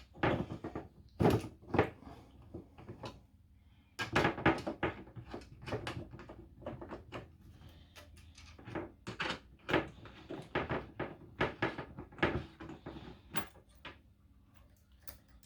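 Irregular clicks and knocks of a screwdriver and hands working on a battery's positive cable terminal while it is being disconnected. There is a short lull about three seconds in before the handling picks up again.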